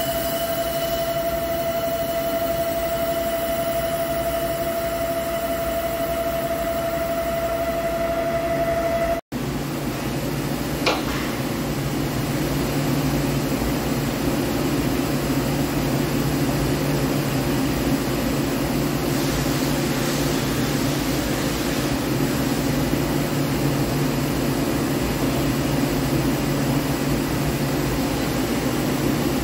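Hankook CNC lathe cutting the bore of a ductile iron roll: a steady machining tone with a clear pitched whine over the machine's running noise. About nine seconds in the sound changes abruptly to a steady low machine hum with the spindle stopped, with one light click shortly after.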